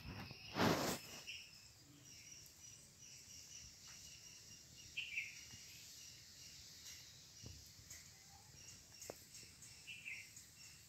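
Faint outdoor ambience of steady, repeated chirping, with two short bird calls, about five and ten seconds in. A brief burst of noise just under a second in is the loudest sound.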